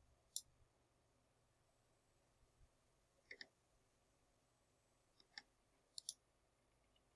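Faint computer mouse clicks, a single one and then a few quick pairs a couple of seconds apart, over near-silent room tone.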